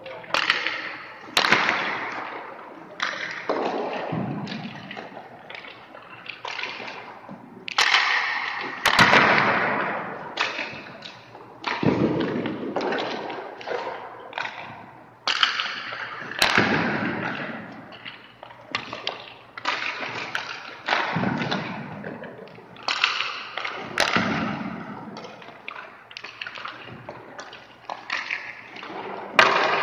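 Ice hockey skates scraping and carving on rink ice, a fresh hiss every second or two that fades away, mixed with sharp cracks of pucks and sticks.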